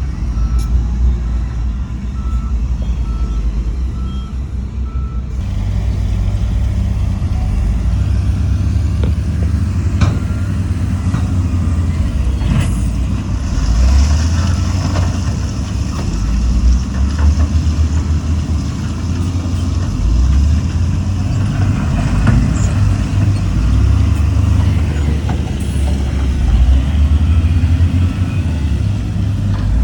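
Heavy diesel earthmoving machinery, a bulldozer and dump trucks, running under load, with a reversing alarm beeping steadily for the first five seconds or so. A few sharp clanks sound through the middle of the stretch.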